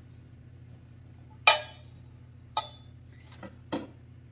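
Four sharp knocks and clinks of bowls and kitchenware being handled and set down on a wooden counter. The first, about a second and a half in, is the loudest; the other three are spread over the next two seconds.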